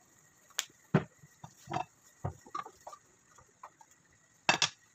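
Wooden spoon stirring soup in a metal stockpot: a string of irregular knocks and short scrapes against the pot, ending in two sharp taps close together.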